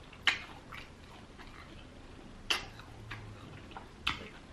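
Chewing a mouthful of crispy fried chicken close to the microphone, with three loud crunches of the batter about two seconds apart and smaller crackles between them.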